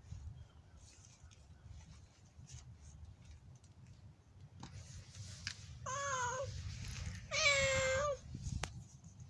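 An injured cat, badly hurt in a dog attack, meows twice: a shorter cry about six seconds in, then a longer, louder one just after.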